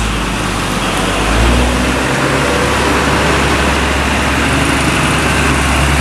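Mitsubishi Fuso tank truck's diesel engine pulling uphill round a hairpin bend: a low, steady drone that grows louder as the truck comes closer, with a change in its note about two seconds in.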